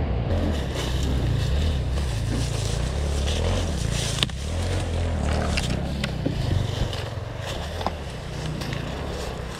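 Enduro motorcycle engine running steadily while riding off-road, with scattered clicks and scrapes over the rumble.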